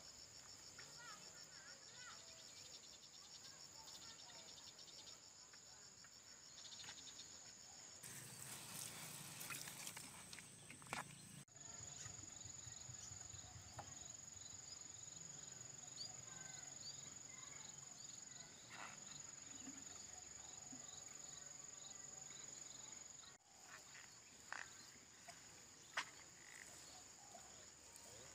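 Insects chirping faintly in a steady high-pitched trill, with a few soft ticks. The sound changes abruptly a few times.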